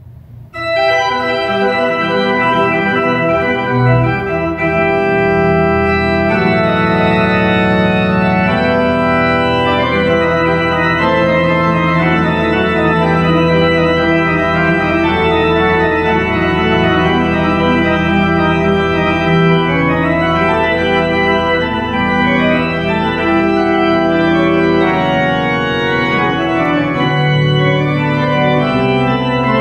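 Pipe organ playing slow, sustained chords with full bass, beginning about half a second in.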